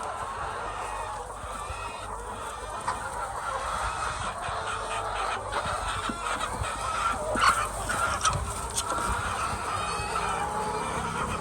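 A flock of chickens clucking, many calls overlapping in a steady chorus, with a few sharp taps about two-thirds of the way through.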